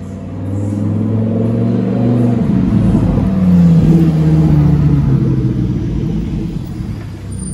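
Lamborghini Huracán's naturally aspirated V10 driving past at low speed under light acceleration. It grows louder as it pulls by, is loudest about four seconds in with the engine note rising and then dropping, and fades as it moves away.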